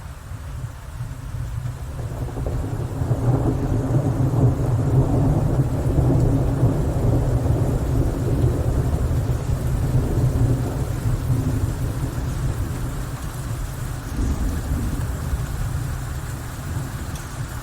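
Rolling thunder over steady rain: a deep rumble swells about two seconds in and slowly dies away.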